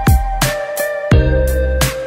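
Background music with a steady electronic beat: deep drum hits that drop in pitch, crisp high clicks, and long held melodic notes over them.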